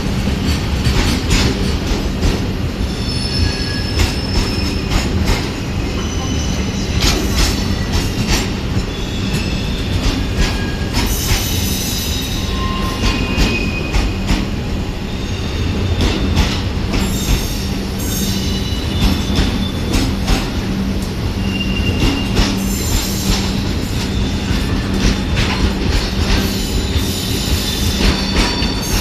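Steel freight train rolling past, its wagon wheels clattering irregularly over the rails with short high-pitched flange squeals coming and going, over a steady low hum.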